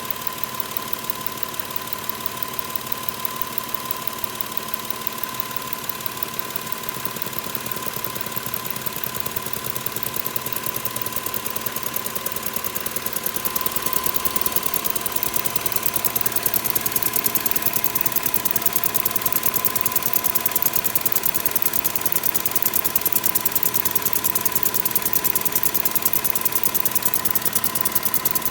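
Subaru EZ30 3.0-litre flat-six engine running, with a fast even ticking and a steady whine over it. It gets louder partway through. About six seconds in comes a strange noise that the owner wants to point out.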